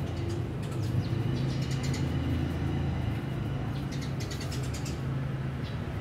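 Sparrows chirping in quick series of short high notes, about a second in and again around four to five seconds, over a steady low mechanical hum.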